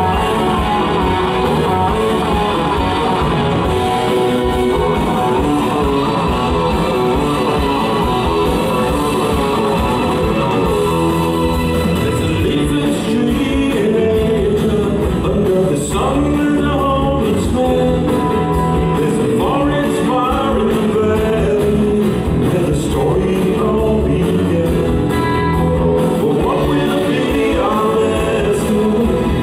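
Live rock band playing: electric guitar, bass guitar and drums, with a male lead voice singing over them from about halfway through.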